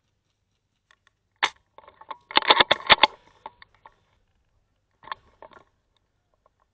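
Handling noise from an airsoft rifle carrying a scope camera: a sharp click, then a quick run of clicks and rattles about two to three seconds in, and a few softer clicks near the end.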